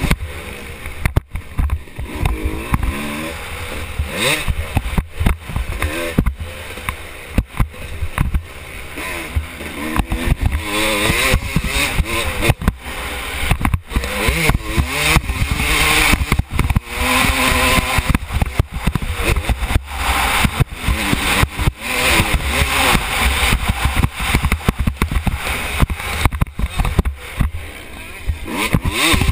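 Motocross bike engine revving hard, its pitch rising and falling again and again as it races. Constant knocking and rattling come through from the helmet camera's loose mount.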